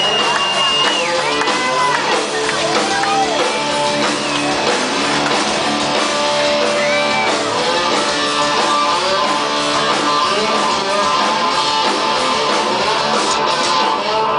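Live rock band playing loudly, led by an electric guitar whose held notes bend and glide up and down in pitch over the rhythm section.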